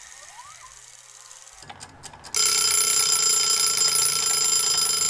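Wind-up, hen-shaped mechanical kitchen timer going off: a few faint clicks, then its bell rings loudly and steadily from about two seconds in. The ring marks the end of the 20-minute bake.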